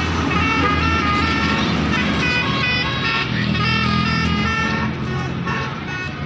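Tour bus's basuri telolet horn playing a melody, several notes sounding together and changing every fraction of a second, over a low, steady engine drone.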